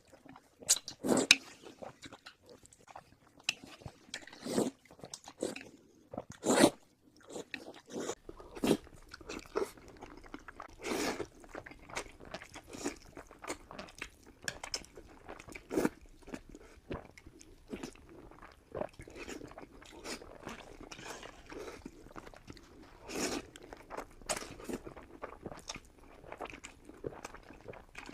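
A person biting and chewing crunchy fried pork with noodles close to the microphone: irregular crunches and wet mouth clicks, a few of them much louder.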